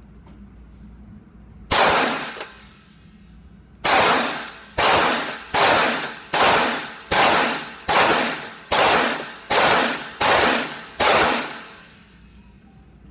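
Handgun shots: one shot, then about two seconds later ten shots fired in steady succession a little under a second apart, each ringing out briefly.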